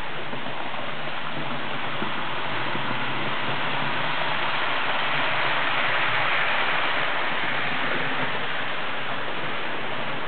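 Model train running on the layout's track: a steady whirring, rolling rattle of motor and wheels that grows louder about six seconds in as a passenger train passes close by.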